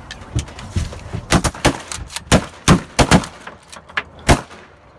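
Several shotguns firing a rapid, ragged volley of about a dozen shots over roughly four seconds, some shots overlapping, with the last shot a little after four seconds in.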